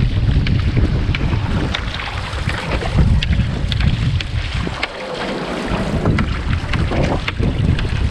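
Strong wind buffeting the microphone over the hiss and splash of wind-chopped ocean water, with many small sharp spray ticks. The low rumble eases briefly about five seconds in.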